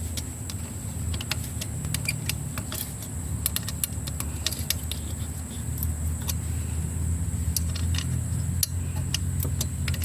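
Motorcycle engine idling steadily, with scattered metallic clicks and clinks from work on the exhaust pipe's clamp.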